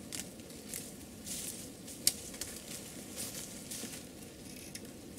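Light crackling and rustling with scattered clicks, and one sharp click about two seconds in, from capercaillie skin with feathers being handled and broken into small bait pieces.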